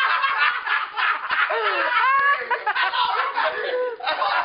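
Several people laughing and talking over one another, with a voice swooping up and down in pitch about two seconds in.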